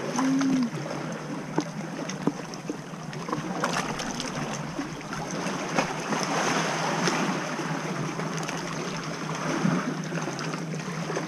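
Small sea waves lapping and sloshing against a rocky shore and an inflatable float, with scattered little splashes and drips. A brief hum of a woman's voice comes at the very start.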